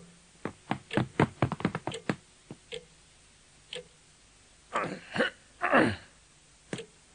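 A man's short effortful grunts and gasps in a quick run, then two louder, longer grunts with falling pitch a few seconds later.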